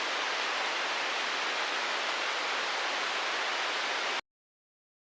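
Steady static hiss, like the noise of a dead broadcast channel, that cuts off suddenly about four seconds in to dead silence.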